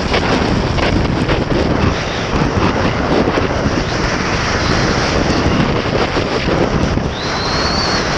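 Heavy wind buffeting the microphone of a skier's camera at speed, mixed with the skis scraping over packed snow. A thin high whistle rises briefly near the end.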